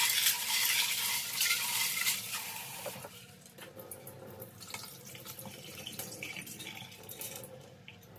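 Kitchen tap running into a sink while red kidney beans are rinsed. The water runs strongly for about the first three seconds, then drops to a softer flow with light clicks and rattles.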